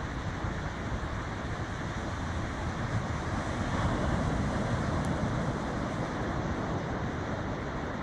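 Ocean surf breaking and washing up the beach, with wind rumbling on the microphone. The wash swells a little around the middle.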